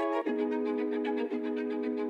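Instrumental outro of a hip-hop track: sustained string chords with no vocals, the chord changing about a quarter second in and again about a second later.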